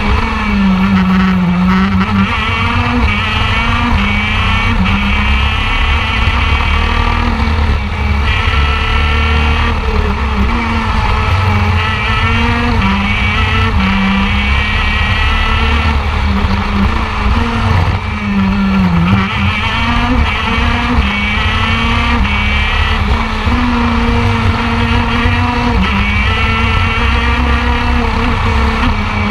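Two-stroke shifter kart engine at racing speed, its revs climbing and dropping again and again as it accelerates, shifts and slows for corners. Heard from the onboard camera, with wind and chassis rumble underneath.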